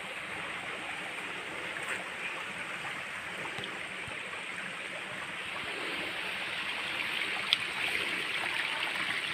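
Hot spring water running through concrete channels and a tank: a steady rush of flowing water that grows gradually louder, with a single sharp click about seven and a half seconds in.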